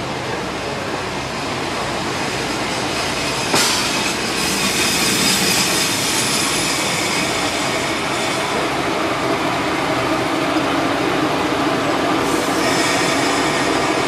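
Kitakinki Tango Railway railcar running slowly into the station and past close by: a steady rumble of the train on the rails, a sharp clack about three and a half seconds in, and a thin high-pitched squeal that comes and goes twice.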